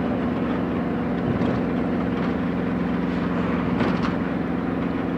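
Steady drone of a moving road vehicle heard from on board: engine hum with two steady low tones under a rush of tyre and road noise. A short knock about four seconds in, as the tyres run over a joint across the road.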